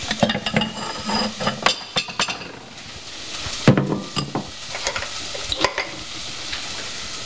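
Knocks and clinks of a bowl and metal cans being handled on a kitchen counter, the loudest a bit over three and a half seconds in, over the steady sizzle of onion and green pepper frying in a pan.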